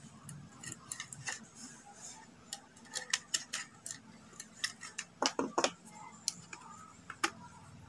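Irregular small clicks and taps of hand tools and wire being worked at an electrical switchboard while a phase wire is connected from the fuse to the socket, with a tight cluster of sharper clicks a little past the middle.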